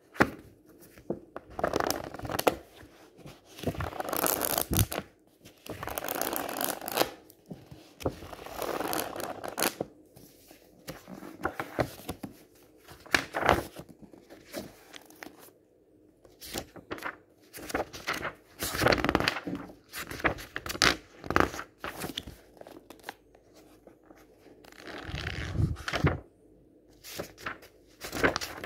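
Pages of a book riffled quickly by hand, a fast flutter of paper in bursts of a second or two, with short pauses and single page flicks between the bursts.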